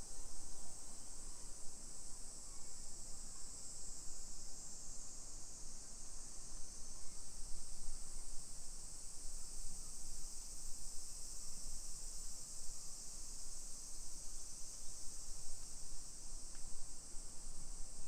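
Summer cicadas singing in chorus: a steady, unbroken high-pitched buzzing drone.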